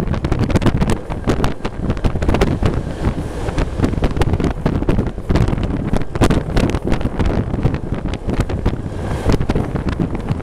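Wind buffeting the microphone in uneven gusts on a moving passenger train, over the train's low running noise.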